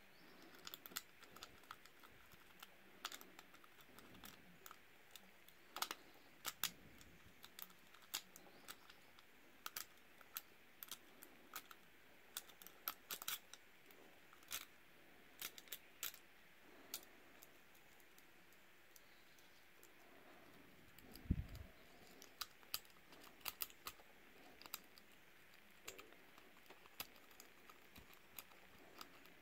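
Faint, irregular metallic clicks and ticks of a steel pick and tension wrench working the pin tumblers of a Burg Wächter Circle 21/60 disc padlock, with one dull thump about two-thirds of the way through.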